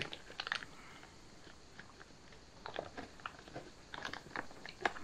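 Plastic freeze-dried meal pouch crinkling as it is handled at its top edge, with small irregular clicks and crackles that come thicker near the end.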